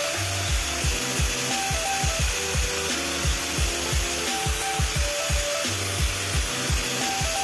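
Makita angle grinder running with a sanding disc, smoothing the base of a pine bowl: a steady hiss of abrasive on wood. Background music with a steady beat plays underneath.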